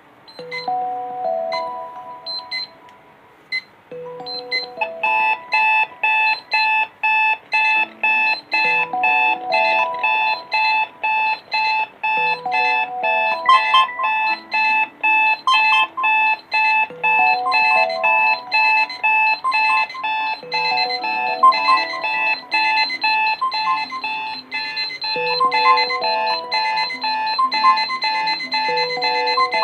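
Alarm clocks ringing: a simple repeating alarm melody, joined about five seconds in by a rapid pulsing electronic alarm beep, the two sounding together.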